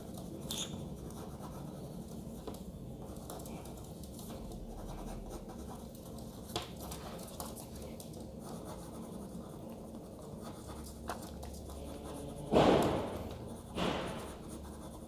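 Pen scratching faintly on paper in short drawing strokes. Two louder, short sounds come near the end.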